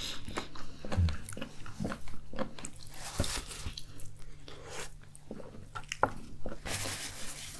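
Close-up eating: biting into and chewing an oven-baked chicken drumstick, with irregular wet smacks and small clicks.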